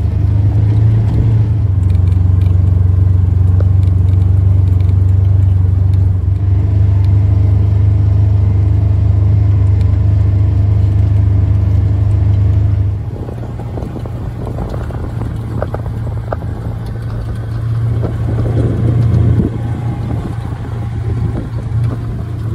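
Steady low drone of a vehicle engine heard from inside the cab. About halfway through it drops a little in level and turns rougher, with scattered knocks.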